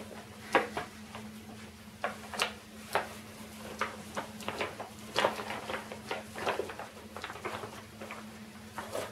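Brown paper shopping bag crinkling and rustling in irregular crackles as a cat lying in it is pushed and pulled across a rug. A steady low hum runs underneath.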